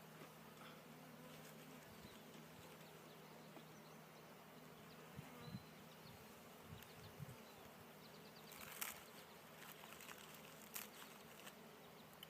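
Honey bees buzzing around an open hive, a faint steady hum. A few light clicks near the end.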